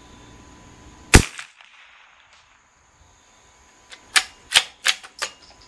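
A single shot from a CZ 457 bolt-action .22 LR rifle about a second in. Near the end come four quick sharp clicks, typical of the bolt being worked to chamber the next round.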